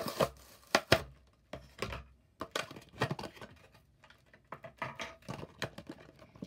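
A toy car's blister pack being torn open by hand: the plastic bubble and card backing crackle and snap in irregular sharp bursts.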